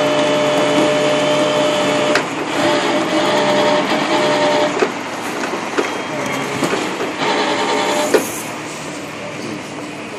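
Tow truck's winch drive whining in a steady tone as it pulls on the cable, its pitch starting to waver about two seconds in, with scattered clicks and a sharp knock near the end.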